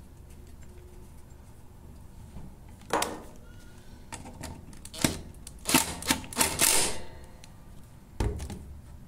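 Makita cordless impact driver tightening a lawn mower's blade bolt in several short bursts of hammering, with clicks from handling the tool and a low thump near the end.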